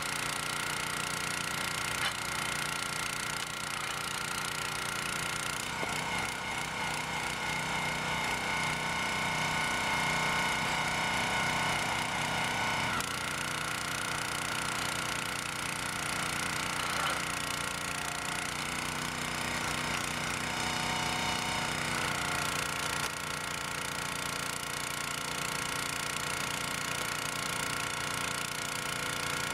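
Log splitter's 6.5 PS OHV petrol engine running steadily, driving the hydraulic pump while the ram pushes a log into the splitting wedge. Its tone shifts a few times as the ram works under load.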